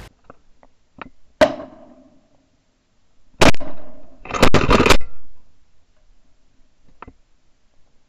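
A series of sharp knocks and bangs: a few light ones, then a louder one with a short ringing tail, then the loudest bang about three and a half seconds in, followed by a dense half-second clatter.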